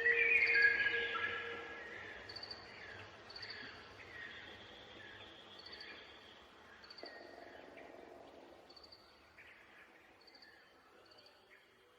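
Bird chirping and whistling, loudest in the first couple of seconds and then fading, over short high chirps that repeat about once a second.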